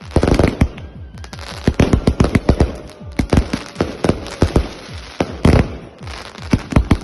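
Consumer firework shot cake firing in a rapid, irregular string of sharp bangs mixed with crackling, with a brief lull about a second in. The uploader says the cake was fused wrongly.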